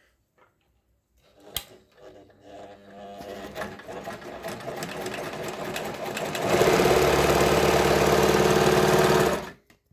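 Pfaff 204 sewing machine stitching a zigzag: after a single click it starts slowly and speeds up, runs fast and steady for about three seconds, then stops abruptly.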